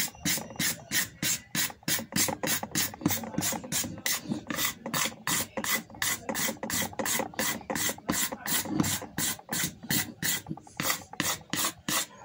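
A steel hand scraper drawn again and again along an imbuia-wood rifle stock, about three quick rasping strokes a second. It is taking the worn old finish down to bare wood.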